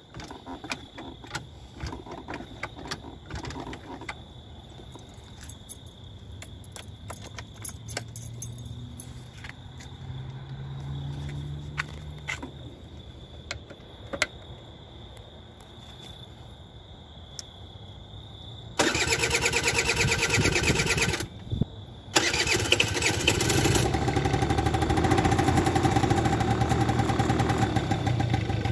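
Honda Spree's 50cc two-stroke engine being cold-started on its electric starter. After a long stretch of faint handling clicks, the starter cranks suddenly for about two seconds and stops briefly, then the engine catches and runs at a steady idle.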